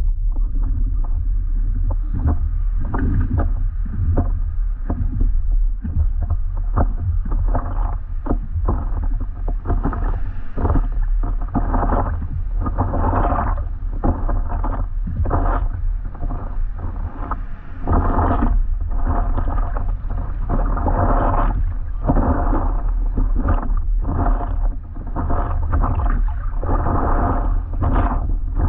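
Water splashing and slapping around a paddleboard in short, irregular splashes, with a steady low rumble of wind buffeting the microphone.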